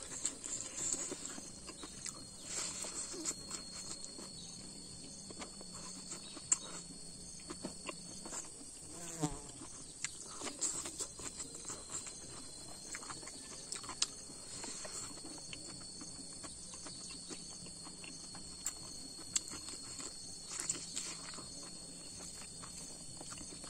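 Close-up eating sounds: chewing, mouth smacks and fingers mixing rice on a banana leaf, as scattered soft clicks. Beneath them runs a steady, high-pitched insect drone.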